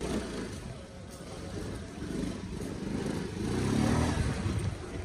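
Motor scooter engine running amid street traffic, getting louder through the middle and loudest about four seconds in.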